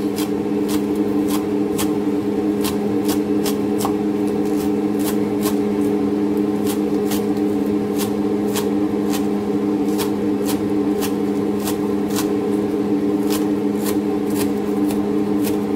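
Kitchen knife chopping spring onions on a wooden cutting board, a steady run of crisp cuts about three a second. A loud, steady low hum runs beneath.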